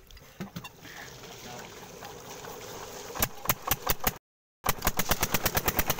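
Single-cylinder Peter-type diesel engine of a tube well catching on a start: about three seconds in it fires with sharp, evenly spaced exhaust beats that quicken into a fast, steady chug. The sound drops out for a split second soon after it fires.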